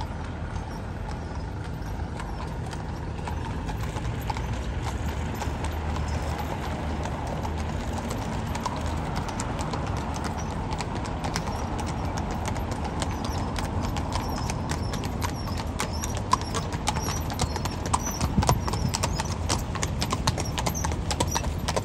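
A carriage horse's hooves clip-clopping on cobblestones as the horse-drawn carriage comes closer. The hoofbeats grow louder and sharper through the second half, over a low steady engine hum that fades out about halfway through.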